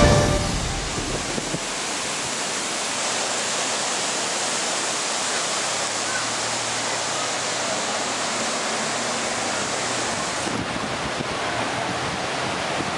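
Steady rushing of floodwater in a swollen river, a constant even roar.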